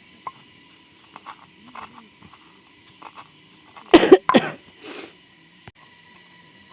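A person coughing, a quick burst of coughs about four seconds in.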